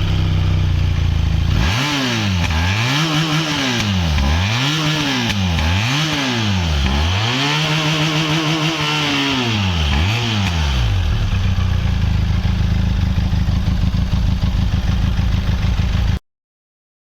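Benelli TRK 502's 500 cc parallel-twin engine on its stock exhaust: idling, then revved in about seven quick throttle blips, each rising and falling in pitch, then settling back to idle. The sound cuts off abruptly near the end.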